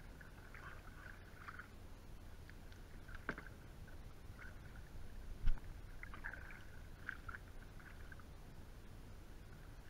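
Water sloshing quietly around a sit-on-top kayak at sea, with a few faint clicks and a single low thump about five and a half seconds in.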